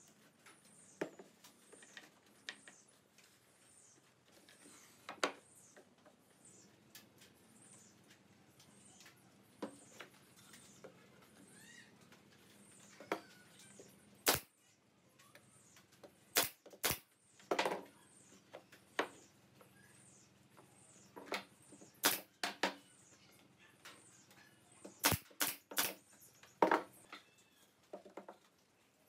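Pneumatic brad nailer firing into plywood: several sharp shots from about halfway in, often two or three in quick succession. Before that there are light knocks from joinery work and a faint high chirp repeating about every two-thirds of a second.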